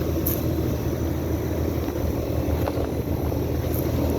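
Outdoor central air-conditioner condensing units running: a steady low compressor hum under the even whoosh of the condenser fans.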